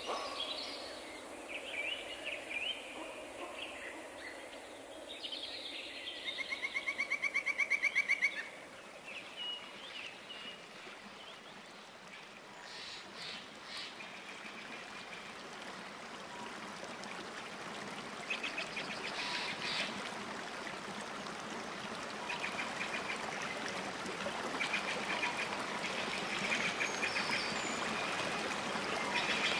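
Outdoor nature ambience: birds calling, with a rapid trill a little after six seconds in. A steady wash like running water grows louder toward the end.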